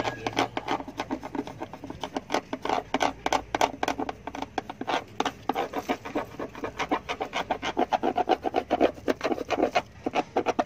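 Pencil scrubbed quickly back and forth over paper laid on the chassis number stamped into a 2013 Mazda 2's floor panel, scraping in rapid strokes. This is a pencil rubbing being taken to copy the number.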